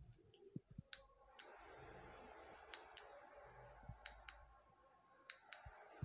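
The small electric fans of a cooling fan jacket start up about a second and a half in and run with a faint steady whir and a thin high whine. Several sharp clicks of the jacket's inline controller buttons are heard along the way.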